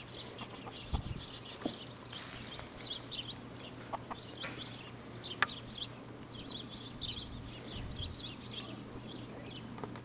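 Chickens calling faintly, with short high chirps and clucks scattered throughout, over a low steady hum.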